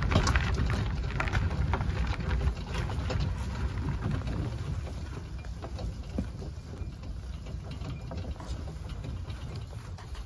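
Hand truck wheeling a boxed Goodman condensing unit over grass and gravel: a steady low rumble with many scattered rattles and clicks, a little heavier in the first few seconds.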